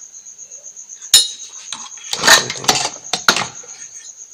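Several sharp clinks and knocks of small hard objects being handled: one about a second in, then a cluster between two and three and a half seconds in. Under them a cricket chirps steadily, a rapid high pulsing.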